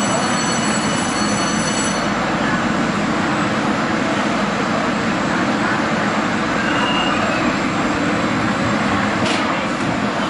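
Beijing subway train standing at an underground platform amid steady station noise; a high whine dies away about two seconds in. Near the end the train's sliding doors close with a short knock.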